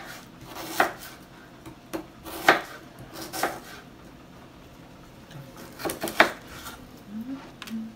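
Chef's knife slicing an onion on a plastic cutting board: about five separate knocks of the blade down onto the board, with a pause of about two seconds in the middle.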